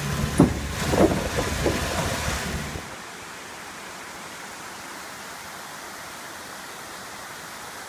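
A vehicle's engine running with a few sharp knocks for about the first three seconds. It then gives way to a steady rushing of river water.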